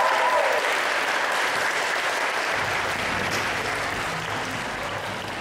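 Audience applauding, slowly dying away. A sustained music chord fades out in the first half second.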